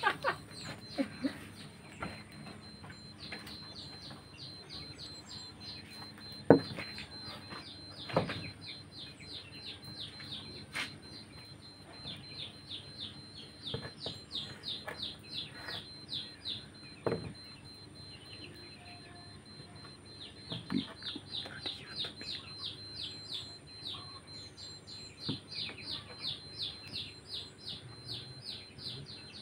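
A bird chirping in long, rapid series of high notes, about five or six a second, stopping and starting again several times. A few sharp knocks, the loudest about six seconds in, as small glazed ceramic jars are handled on wooden planks.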